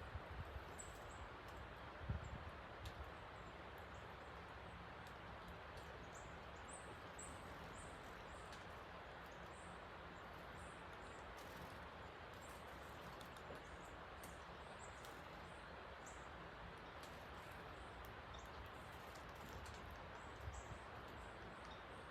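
A creek running high after heavy rain, giving a steady rushing, with small birds at a feeder making many short, high chirps throughout. A brief low thump about two seconds in.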